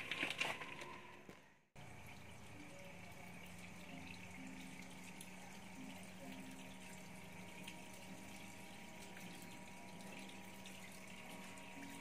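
A few short knocks in the first second or so, then a small 12 V DC water pump, powered from a 120 W solar panel, squirting a thin jet of water that splashes steadily onto the pond surface, with a faint steady low hum.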